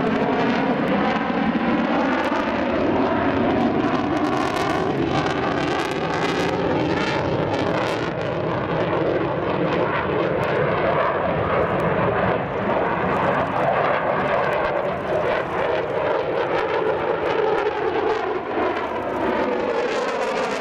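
Twin Pratt & Whitney F100 turbofan engines of a JASDF F-15J Eagle fighter flying a display pass: a loud, continuous jet roar whose tone sweeps slowly up and down, with a phasing quality.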